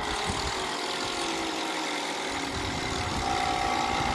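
A heavy machine's engine running steadily, with a higher whine joining about three seconds in.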